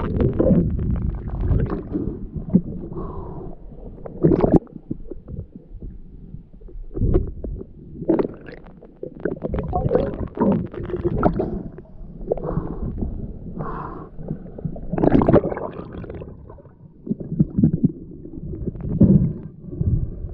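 Muffled underwater sound picked up by a camera in its housing: water swirling and gurgling around it in uneven surges, with low rumbles and a few sharp knocks as the diver moves.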